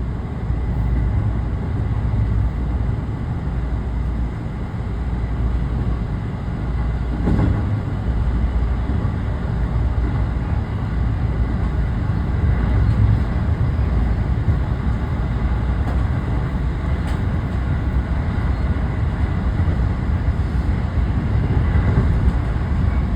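Running noise of a JR West commuter train heard from inside the passenger car: a steady low rumble with a few faint clicks, one about seven seconds in.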